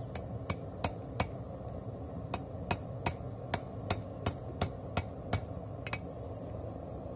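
Hand hammer striking a red-hot damascus billet of bandsaw blade and pallet strap layers on the anvil, about three blows a second with a brief pause about a second and a half in, stopping a little over five seconds in. The blows are setting the forge welds to consolidate the layers into a solid piece.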